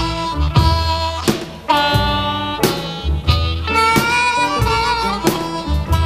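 Instrumental intro of a blues song: a wind-instrument melody over bass and regular drum hits.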